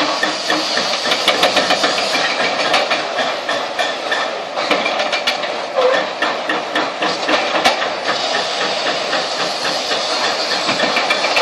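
Demolition excavator at work: steady machinery noise with many irregular knocks and clatter, as concrete and rubble are broken and shifted.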